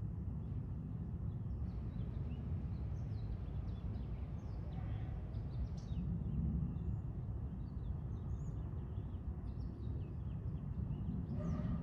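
Low, steady rumble of a Boeing 737-700 airliner's jet engines from a distance, with small birds chirping repeatedly over it.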